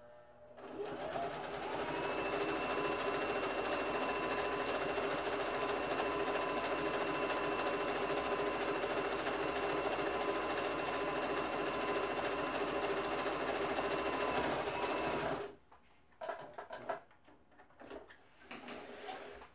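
Electric domestic sewing machine running steadily with a constant motor whine as it stitches binding onto woven fabric, speeding up over the first second or so and stopping suddenly about fifteen seconds in. A few short clicks and knocks follow as the fabric and machine are handled.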